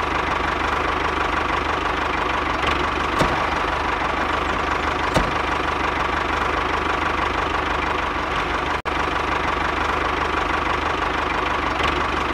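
Small electric DC motor of a home-made model tractor running steadily, with a constant whine and a low hum. It cuts out for an instant about nine seconds in, and two faint ticks come earlier.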